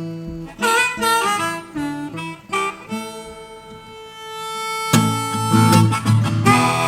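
Blues song, instrumental break: harmonica playing bending notes over acoustic guitar, holding one long note in the middle, before the strummed guitar comes in louder about five seconds in.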